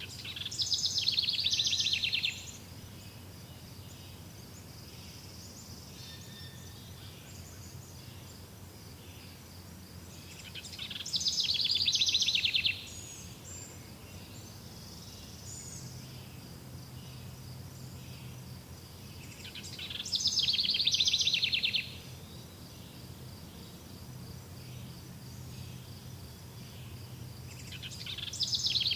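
A songbird repeating a rapid trilled song phrase about every nine seconds; each phrase lasts about two seconds, swells and then stops abruptly. A steady high pulsing and a faint low hum run beneath it.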